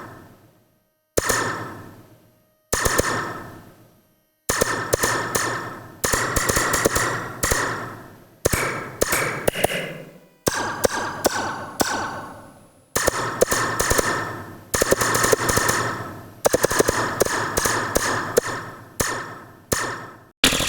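Metal Slinky spring struck and recorded with a microphone clipped to it, giving sharp blaster-like twangs that each ring down over a second or so. The first few come singly; from about four seconds in they come in quick, overlapping runs.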